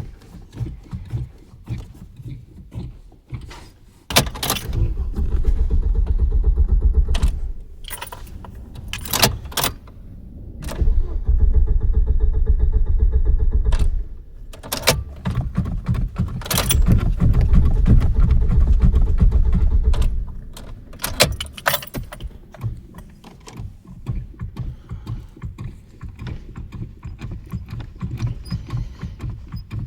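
Car engine cranked by its starter in three long attempts of about three to five seconds each, cutting off without the engine catching, on a car that won't start. Between attempts, keys jangle and click in the ignition.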